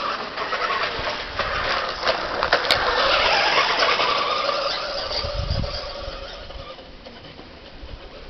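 Remote-control Peugeot 206 monster truck's motor and gears whirring as it drives. It grows louder to a peak about three seconds in, then fades away over the next few seconds.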